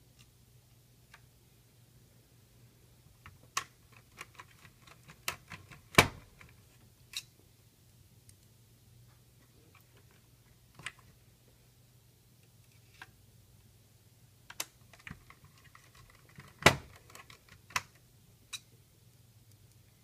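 Irregular small metallic clicks and taps as screws are driven by hand with a screwdriver into the sheet-metal chassis of a BMW CD53 car CD player. Two sharper knocks stand out, one about six seconds in and one late on.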